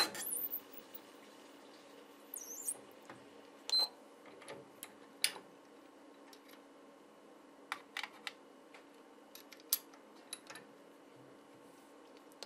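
A 1/4-20 tap turned by hand in a mini mill's chuck, threading a hole in a brass key: scattered faint metallic clicks and ticks over a steady low hum.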